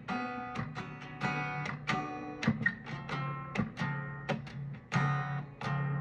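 Guitar being strummed, a run of chords each struck sharply and left to ring, several strums a second.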